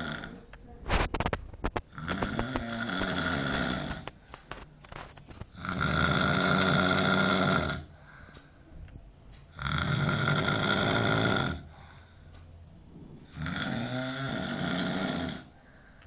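A person snoring loudly, four long rasping snores of about two seconds each, coming roughly every four seconds. A few sharp clicks come about a second in.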